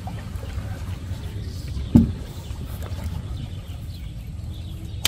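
Steady low rumble, with one sharp knock on a wooden boat's planks about two seconds in as a person shifts from kneeling to sitting on the deck.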